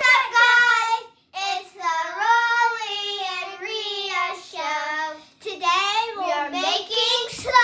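A child singing, holding long notes with sliding pitch, with two short breaks.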